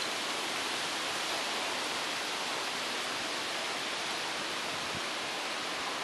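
A steady, even hiss with no distinct sounds standing out of it.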